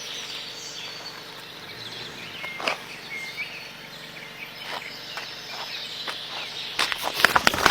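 Steady outdoor background noise with a few short, high chirps from an animal about a third of the way in. A run of clicks and knocks starts near the end.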